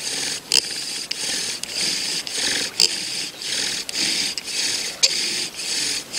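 Bow drill for a friction fire: the wooden spindle grinding in its hearth board as the bow is sawn back and forth, one rasping stroke about every half second, with a sharp squeak or click now and then.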